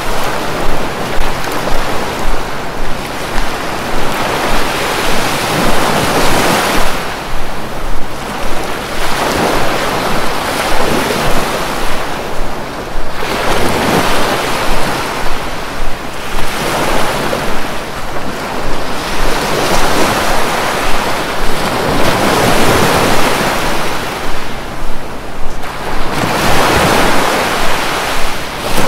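Sea waves breaking and washing up the shore one after another, swelling and fading every few seconds.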